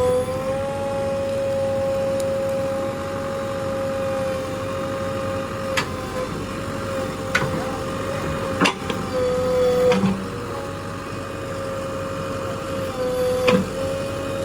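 JCB 3DX backhoe loader running while digging: a steady high-pitched machine whine that dips briefly in pitch a few times, with a few sharp knocks scattered through it.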